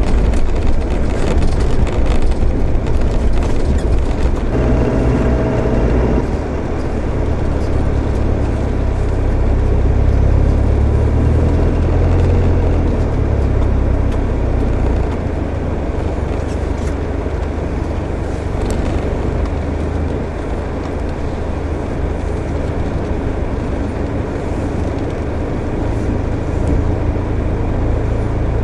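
Land Rover 4WD heard from inside the cab while driving on a dirt track: a steady engine drone under tyre and road rumble, with a brief higher tone about five seconds in.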